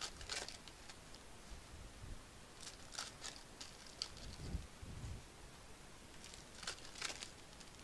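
Faint crinkling and rustling of foil trading-card pack wrappers and cards being handled with gloved hands, in a few short crackles, with a couple of soft bumps about halfway through.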